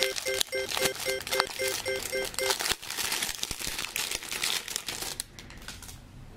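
Crinkly clear plastic wrapping on a packaged toy action figure crackling as hands grip and crumple it, dying down after about five seconds.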